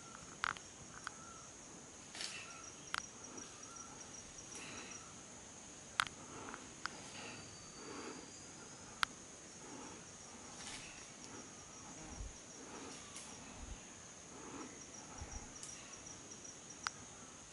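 Forest insects keep up a steady high-pitched drone, with stretches of fast, even chirping just beneath it. Scattered sharp clicks and snaps stand out above it.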